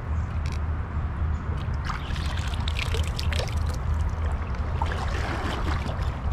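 Shallow creek water trickling and splashing, with scattered small splashes, over a steady low rumble.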